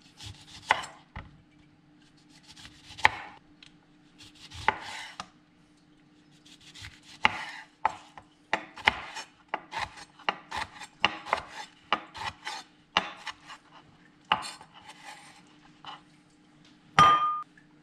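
Chef's knife slicing and chopping a lemon on a wooden cutting board: a few slow slicing strokes at first, then a quicker run of knife knocks on the board. Near the end comes a loud, short ringing clink.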